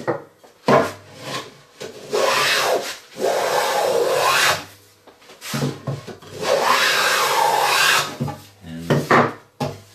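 Wooden hand plane shaving the edge of a pine board clamped on edge, in two long hissing strokes, the first about two and a half seconds long. Short wooden knocks come just before and after the strokes.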